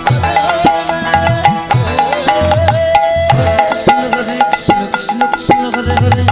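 Instrumental kirtan music between sung verses: a double-headed barrel hand drum (khol) plays a steady rhythm under a held, slightly bending melody line. In the second half there are four bright, hissing hits.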